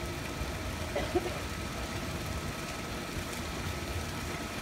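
Steady low rumble of outdoor background noise, with a brief short sound about a second in.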